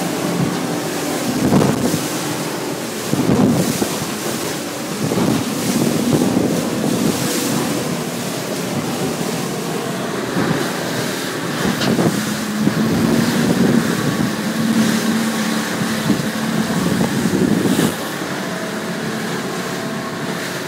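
Outboard motor of a 5.3 m aluminium Quintrex half-cabin boat running steadily, with the hull repeatedly slamming and splashing into choppy swell and wind buffeting the microphone. The engine note drops a little about twelve seconds in.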